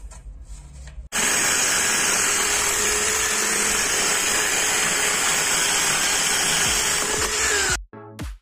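Electric drill spinning a wood-cutting disc on a bolt arbor, sawing through a pallet board: loud and steady, with a faint constant tone. It starts abruptly about a second in and cuts off near the end, where electronic music with a beat begins.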